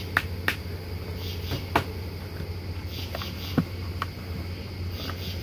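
A handful of sharp plastic knocks and clatters as a yellow bucket of vacuumed honey bees and its screened lid are handled, the loudest twice in the first two seconds and once about three and a half seconds in, over a steady low hum.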